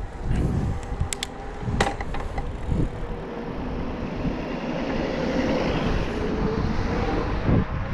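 Bosch Performance Line e-bike drive unit pulling under full assist as the bike accelerates. Its faint whine rises slowly in pitch over rushing wind and tyre noise, with a few sharp clicks about one and two seconds in.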